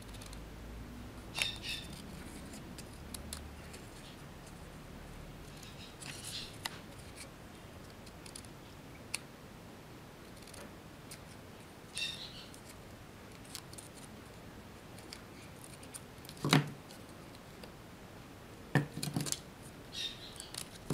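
Scissors snipping paper as letters are cut out, in a few short separate bursts of cutting, with a couple of sharper knocks against the table in the second half.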